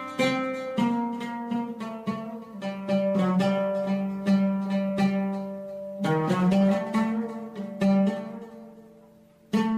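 Instrumental music on a plucked string instrument, with notes struck and left to ring over a held low note. It fades down near the end and then a new phrase begins.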